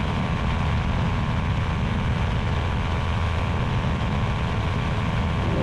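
Quad City Challenger II ultralight's engine and propeller droning steadily in flight, heard from inside the cockpit with wind noise over it.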